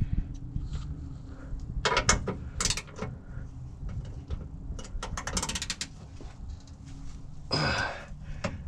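Hand ratchet wrench clicking in several short runs as it works the bolts of an old spare-tire mount loose.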